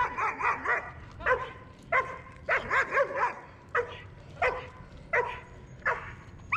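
A dog barking over and over: quick runs of three or four barks at the start and about halfway, with single barks every half second to a second between them.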